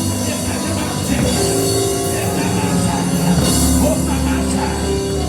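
Live church band playing loud praise music, with drum kit and held organ or keyboard chords.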